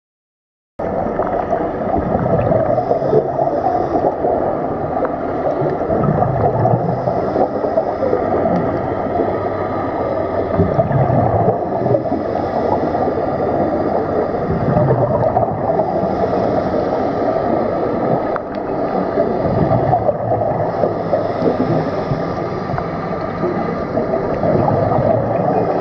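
Muffled underwater sound through a camera housing: scuba divers' exhaled bubbles gurgling over a steady dense hiss, starting suddenly about a second in. Low rumbling swells come back every four or five seconds.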